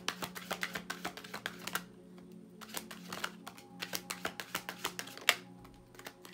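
A tarot deck being shuffled and handled, with quick runs of card flicks and clicks in three or four bursts and one sharper snap about five seconds in. Soft background music with steady held notes runs underneath.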